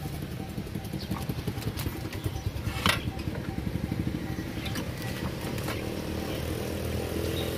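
A small engine idling steadily with a low, fast-pulsing rumble, with a single sharp clack about three seconds in.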